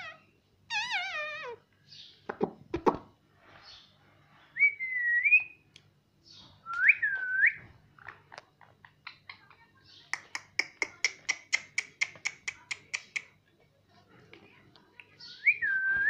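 Indian ringneck parakeet whistling several short, clear notes that dip and rise in pitch. About ten seconds in there is a fast run of clicks, roughly five a second, for a few seconds.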